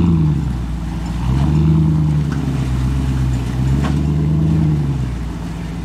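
Off-road 4x4 engine revving up and falling back in repeated surges of throttle, three pushes in a few seconds, with a sharp knock about four seconds in.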